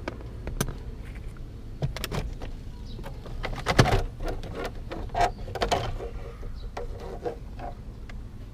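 Plastic dashboard trim panels of a Toyota Corolla being pulled loose by hand: a run of irregular clicks, snaps and hollow plastic knocks, the loudest a little before the halfway point, over a low steady rumble.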